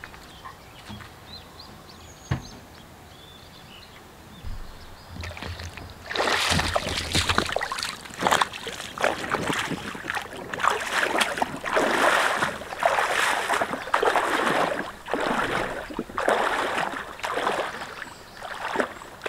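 A person wading through a shallow, stony river, the water sloshing and splashing with each step about once a second, starting some six seconds in.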